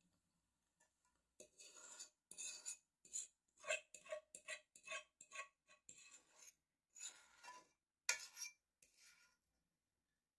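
A utensil scraping and clinking against a dish while mashed potatoes are spread and shaped, in a quick run of short strokes. It starts about a second and a half in and stops shortly before the end.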